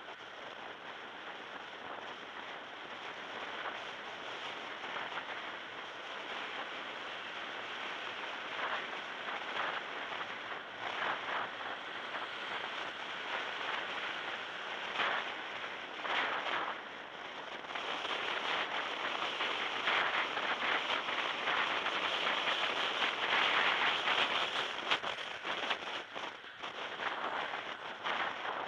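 Road and wind noise of a moving car picked up by a small camera microphone: a steady rushing noise with frequent crackles, growing louder about two-thirds of the way through.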